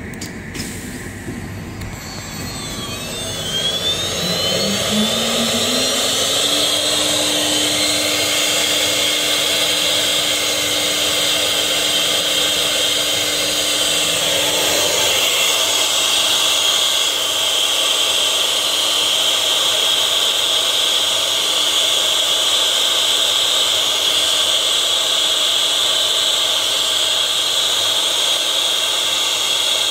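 CNC wood router spindle starting after a click, spinning up with a rising whine over about three seconds and then running at a steady high whine. About halfway through, the sound turns brighter and hissier as the bit starts cutting into the MDF board.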